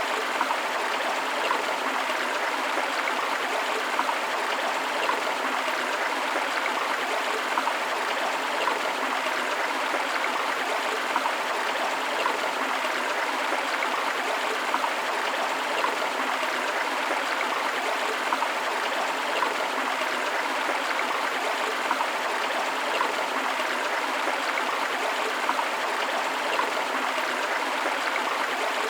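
Forest river flowing steadily over rocks, a continuous rushing and babbling of water with small splashes and gurgles, with the hiss of a waterfall in it.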